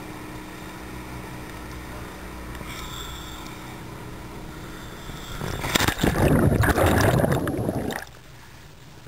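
Dive boat's engine idling with a steady low hum over sea noise. About five and a half seconds in, a loud rush of splashing water for about two seconds as the camera goes into the sea, then it cuts to quieter water sloshing at the surface.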